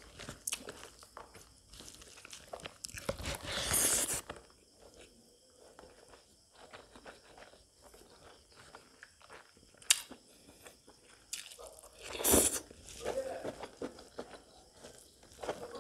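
Close-miked eating sounds: chewing and crunching of pork cooked with blood and rice, with small mouth clicks and hand-on-food noises. Two louder rustling bursts stand out, one about three to four seconds in and a shorter one about twelve seconds in.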